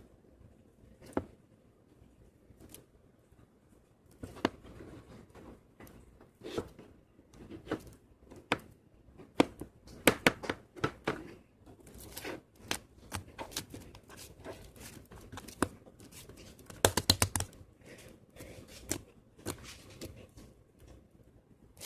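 Close handling noises: a run of sharp clicks, taps and crinkling. They come thickest about ten seconds in, with a quick cluster of clicks around seventeen seconds.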